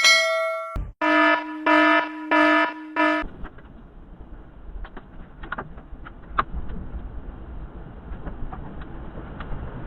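An alarm horn sounds four short blasts, followed by a steady rumbling noise with scattered clicks and knocks.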